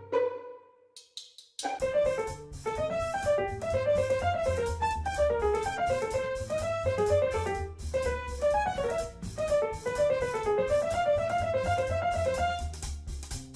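Background music: a keyboard melody over drums and a bass line, starting about two seconds in after a single ringing note fades.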